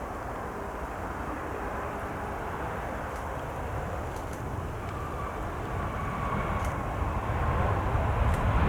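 Jet airliner engines, heard as a steady distant rumble with a faint whine, growing louder near the end.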